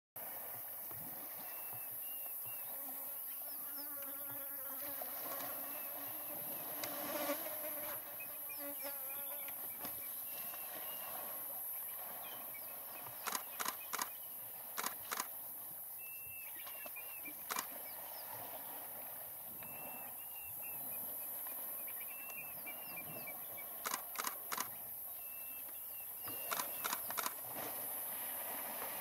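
A steady high-pitched insect drone, with a small bird chirping now and then and several clusters of two to four short, sharp clicks or knocks, about halfway through and again near the end.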